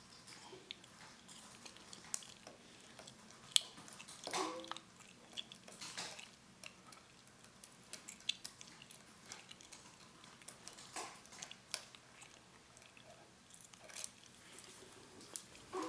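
Lock picks and a tension wrench working a pin-tumbler padlock core: small, irregular metal clicks and ticks as the pins are set.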